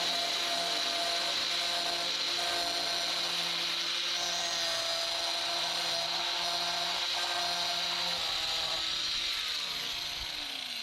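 Rotary power tool cutting into a carbon fiber hood, running steadily with a high whine. Near the end it is switched off and spins down, its pitch falling.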